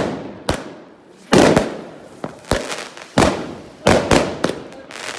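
Fireworks going off in quick succession: about eight loud bangs, unevenly spaced, each trailing off in a short echo.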